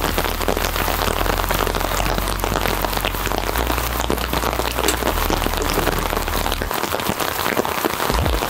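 Steady rain falling: an even hiss dotted with many small drop ticks.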